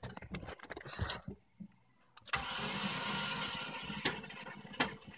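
Starter cranking a non-running L31 Vortec 5.7 V8 for about two seconds to build oil pressure, with sharp clicks before and after that the owner cannot explain.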